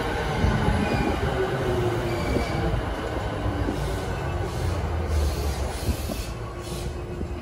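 E217 series commuter train pulling into the platform and braking to a stop, its running noise easing as it slows, with a thin steady squeal and a few short hisses near the end.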